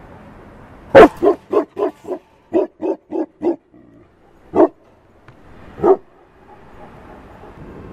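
Tibetan mastiff barking: a rapid run of about nine barks starting about a second in, the first the loudest, then two slower single barks.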